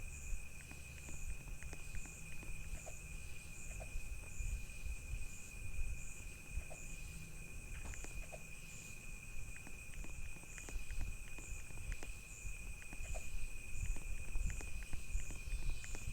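Insects chirping: a steady high trill with a pulsing chirp about one and a half times a second above it, over a low rumble and scattered small clicks.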